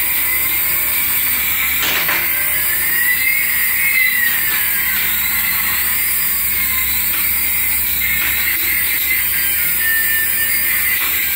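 Small electric motors and rotors of a toy RC helicopter whirring steadily in flight, with a hissy high whine. A few seconds in, two whining tones slide past each other in pitch, one rising and one falling.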